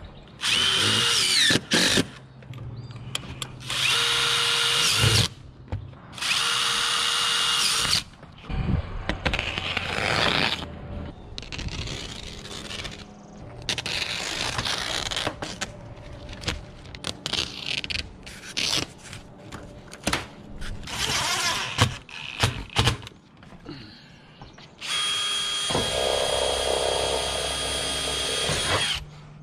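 Cordless drill driving screws into sheet-metal roofing clips and trim. It runs in repeated short bursts of a second or two, with a longer run of about four seconds near the end.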